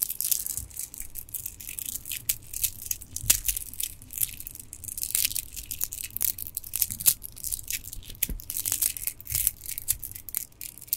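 Stone bead bracelets handled close to the microphone: a dense, continuous stream of small clicks and rattles as the gemstone beads knock and rub against each other.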